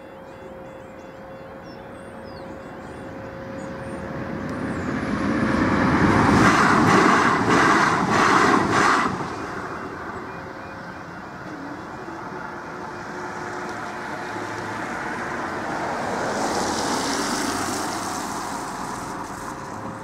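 Southern Class 377 electric multiple unit passing over a level crossing: it builds to its loudest about six to nine seconds in, with a quick run of clicks, then fades. Under it the crossing's alarm sounds a steady tone, and a second, quieter rush of passing-vehicle noise swells and fades near the end.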